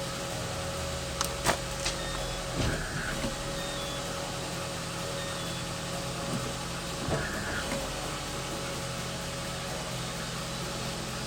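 Lada Kalina engine idling steadily, with a few short clicks and knocks over it, the loudest about a second and a half in and another around seven seconds.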